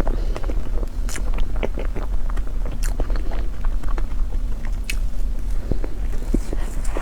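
Close-miked eating sounds: biting and chewing food, many small sharp clicks and smacks at an uneven pace over a steady low hum.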